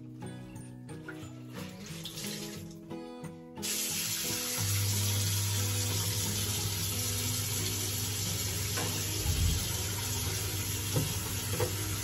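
Faint background music, then a few seconds in a tap is opened and water runs steadily from the wall faucet into a utility sink, with a low hum underneath and a few light knocks near the end.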